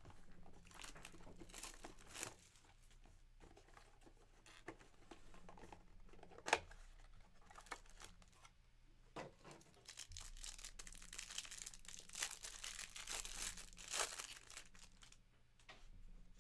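Wrapping on a box of 2023 Panini Absolute Football trading cards being torn open and crinkled by hand. Irregular rustling, with one sharp snap about six and a half seconds in, and denser crinkling from about ten seconds on.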